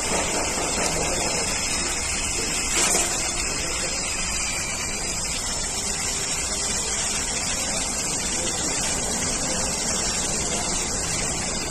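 A steady rushing hiss, like machinery or airflow running in the background, with one short click about three seconds in.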